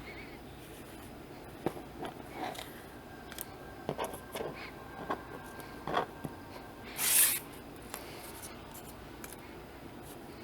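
Light taps, clicks and rustles of die-cut card stock pieces being handled and set down on a magnetic sheet, with one brief louder swish about seven seconds in.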